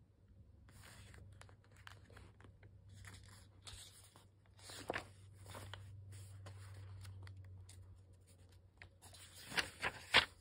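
Paper pages of a small spiral-free notebook being handled and turned by hand: intermittent soft paper rustling, with a few sharp crinkles and taps, the loudest as a page is flipped near the end. A faint steady low hum lies underneath.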